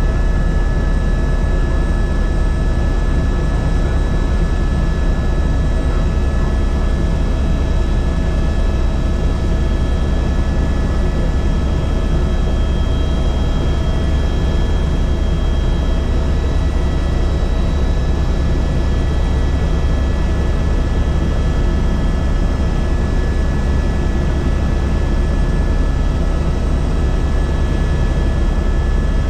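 Helicopter in steady flight: a constant deep drone with several steady whining tones above it.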